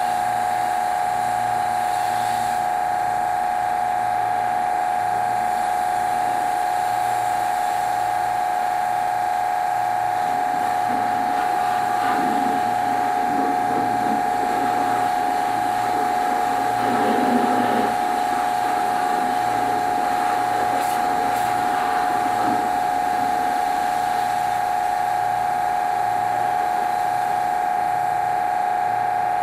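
A steady high-pitched electrical whine at one unchanging pitch and level, with faint voices in the middle.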